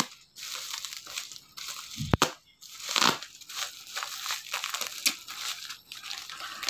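Black plastic parcel wrapping being slit with a small cutter knife and pulled open by hand: irregular crinkling, crunching and tearing of the plastic, with a sharp click about two seconds in.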